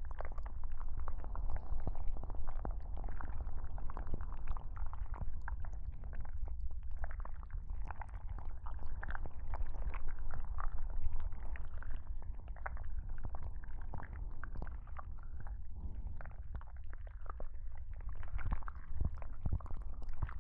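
Close, wet squishing and crackling rubbed against a binaural microphone as ASMR tentacle sounds on the listener's head, over a steady low rumble.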